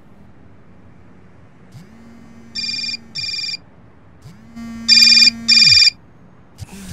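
Mobile phone alarm going off: electronic beeps in pairs, two pairs, the second much louder than the first. A low buzz of the phone vibrating swells in just before each pair and dies away after it.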